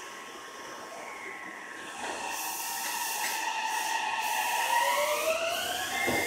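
Meitetsu 3300 series electric train pulling out of the station: a hiss of air comes in about two seconds in, then the traction motors start to whine, several tones rising together in pitch as the train accelerates.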